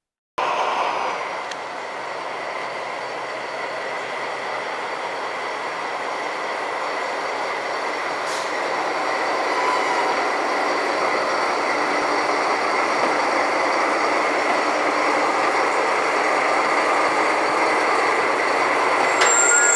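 An SNCF BB 67400 diesel-electric locomotive running light at low speed, its diesel engine droning steadily with a faint steady whine and growing gradually louder as it draws near. A short high squeal comes in right at the end.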